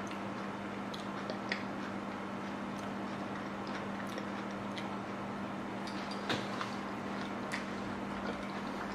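Quiet eating sounds: scattered small clicks and crackles as a hard taco shell is picked apart by hand and chewed, the sharpest about six seconds in, over a steady low hum.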